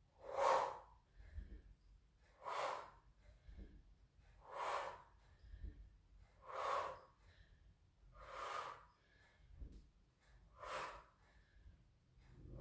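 A woman's heavy, rhythmic exhalations during a dumbbell exercise, one short breath about every two seconds, the effort breathing of the repetitions.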